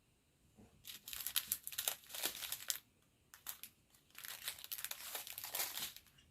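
Plastic packaging crinkling as it is handled, in two stretches of dense crackling.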